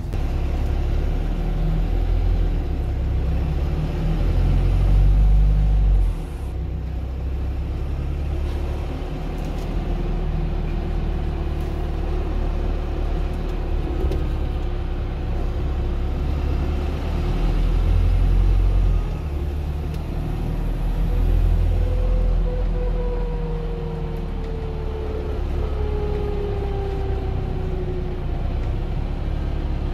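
Optare Metrodecker double-decker bus running, heard from inside on the upper deck: a steady low rumble that swells a few times. Near the end a faint whine slowly falls in pitch.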